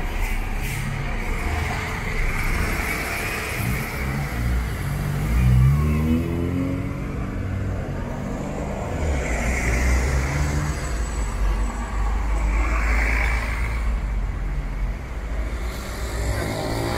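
Street traffic: a steady low rumble of vehicle engines. About five seconds in, one vehicle accelerates, its engine pitch rising.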